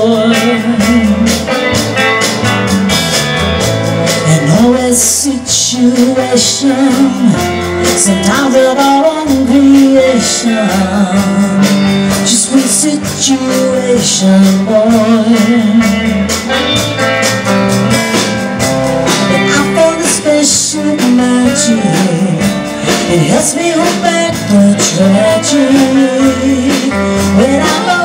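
Live band music: a woman singing over electric guitar and a drum kit with cymbals.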